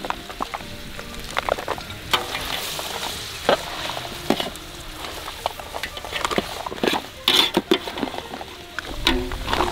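King crab pieces, onions and green chillies frying in a large metal pot with a steady sizzle. A metal spatula stirs them, scraping and knocking against the pot in sharp, irregular clicks.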